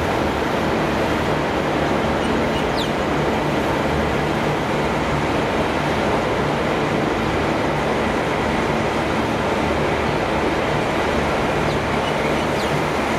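Steady railway-yard noise: the constant hum of idling diesel trains under an even hiss.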